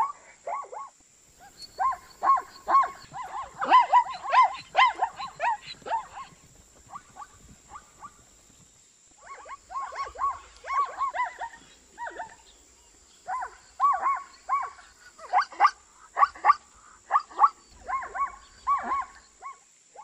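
Zebra barking: quick runs of high, yelping barks, about three a second, in several bouts with short pauses between.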